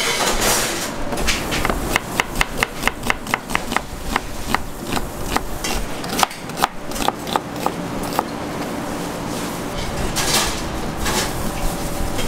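Chef's knife slicing an onion on a plastic cutting board: a quick, even run of sharp knocks, about five a second, as the blade hits the board, then a few slower, scattered cuts.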